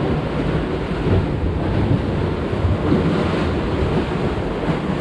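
Sea water surging and sloshing in the gaps between concrete breakwater blocks, with wind buffeting the microphone.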